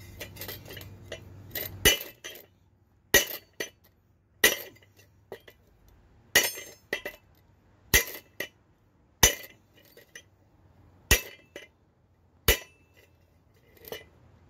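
A string of sharp metal-on-metal clinks, one every second or two, from the steel pulley and socket extension of a seized tiller mule drive being handled.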